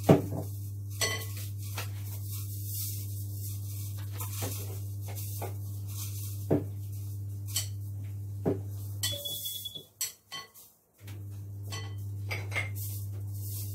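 A spoon stirring a dry flour mix in a glass bowl, with scattered clinks and knocks of the spoon against the glass, the sharpest right at the start. A steady low hum runs underneath, and the sound drops out briefly about ten seconds in.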